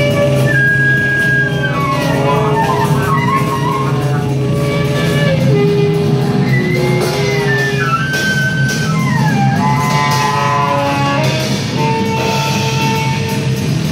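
Live band music: saxophone and trombone playing long held notes and pitch slides over a steady low drone, with no regular beat.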